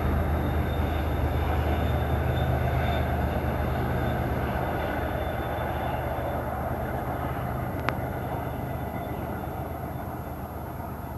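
Train running, a steady rumble with a low hum that slowly fades. A single sharp click about eight seconds in.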